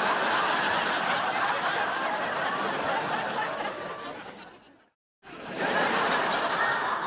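Canned studio-audience laughter: a crowd laughing that fades out about five seconds in, then after a brief silence another round of crowd laughter starts.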